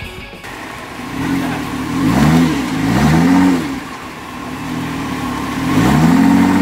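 Jeep Wrangler engine revving in three bursts while crawling over rocks: each rev rises and falls in pitch, and the last one, near the end, is held longer.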